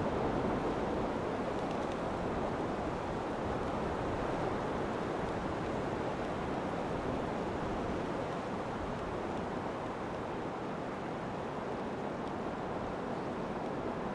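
Steady rush of flowing river water, an even noise with no distinct events.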